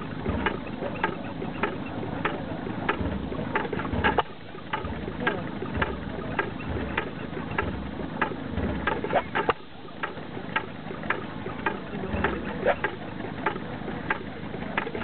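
Single-cylinder New Holland hit-and-miss stationary engine running, a sharp click about twice a second as the flywheels turn, with low thumps at uneven intervals as it fires and coasts between firing strokes.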